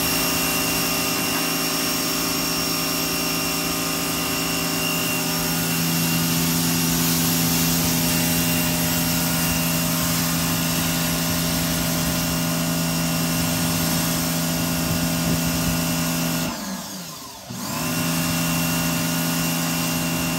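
Pressure washer running steadily: a motor hum under the hiss of the spray. About three-quarters of the way through, the motor briefly winds down and starts back up, as when the trigger is let go and squeezed again.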